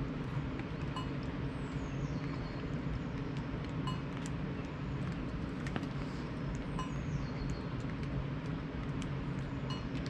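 Eating utensil clinking and tapping now and then against a metal camping pot, over a steady low background rush.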